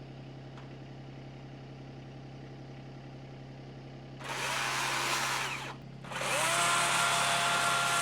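Two-stroke chainsaw idling, revved briefly about four seconds in, then brought up to high revs and held there near the end.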